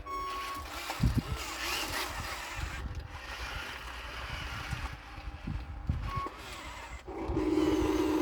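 Radio-controlled construction models working: a low rumble with scattered knocks, and a short steady high beep near the start and again about six seconds in. About seven seconds in, a steady electric motor whine starts up.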